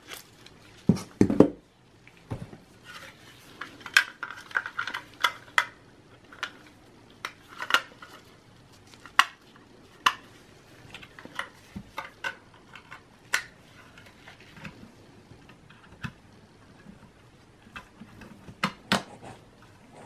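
Foil anti-static bag crinkling as a 2.5-inch hard drive is wrapped in it, then scattered clicks and taps as a 2.5-inch SATA SSD is handled and set into a laptop's drive bay.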